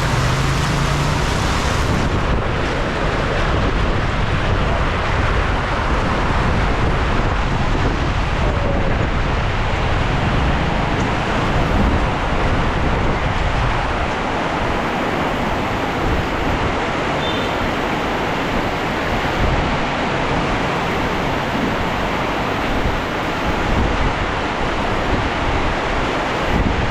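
Heavy rain pouring steadily, a dense even hiss, with a low hum in the first second.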